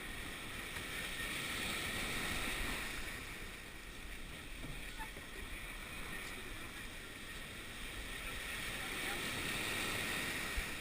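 Steady wash of open water and wind around a surf boat sitting still on the water, swelling gently twice.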